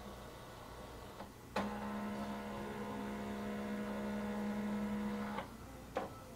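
Canon all-in-one printer starting up after being switched on: a steady motor hum with several pitched tones sets in suddenly, runs for about four seconds and stops abruptly, followed by a click.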